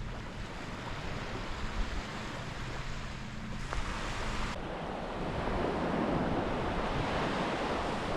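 Ocean surf washing onto a sandy beach, with wind on the microphone; the wash swells louder about five seconds in.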